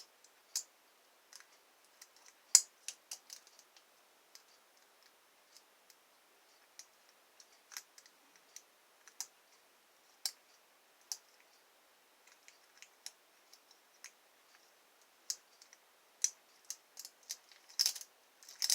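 Lock pick and tension wrench working the pins of a pin-tumbler lock: scattered, irregular small metallic clicks and ticks, a few louder ones about two and a half seconds in and near the end.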